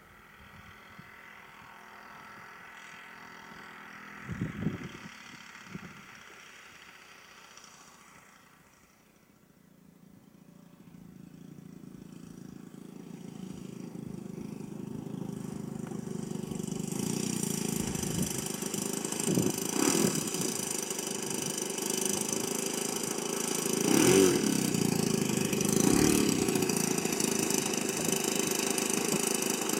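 A Saito 220 four-stroke engine in a Hangar 9 Extra 260 model airplane runs at low throttle through the landing and taxi, growing steadily louder as the plane comes closer. It gives a few short bursts of throttle in the second half. A couple of dull knocks are heard about four seconds in.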